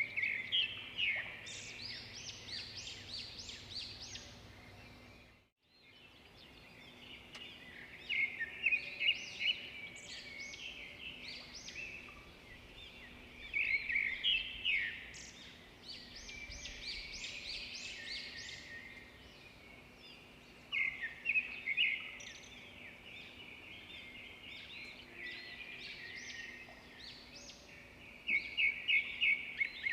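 Small birds chirping in quick repeated bouts every few seconds, over a faint steady hum.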